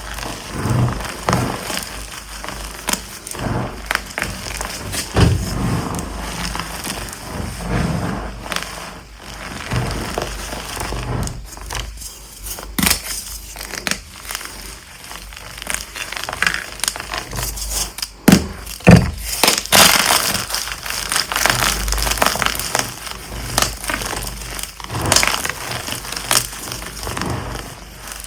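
Dyed gym chalk blocks being crushed and crumbled, giving an irregular, continuous run of crunches and crackles. A few sharper, louder snaps come about two-thirds of the way through.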